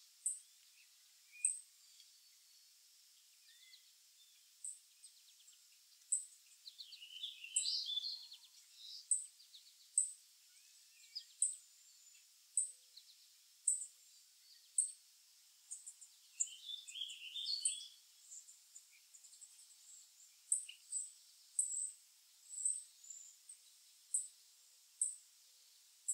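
Chickadees calling: a string of short, very high chirps, roughly one a second, with two bursts of lower, busier twittering, about a third of the way in and again past halfway.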